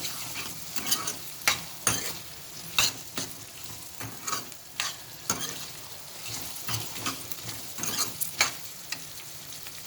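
Potato, capsicum and peas frying in oil in a pan, sizzling steadily while being stirred, with the utensil scraping and knocking against the pan every second or so.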